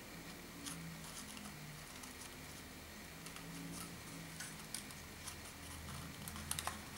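Origami paper rustling and crinkling in the hands as the folded units of a modular kusudama are slotted together: scattered soft crinkles and taps, with a couple of sharper crinkles near the end.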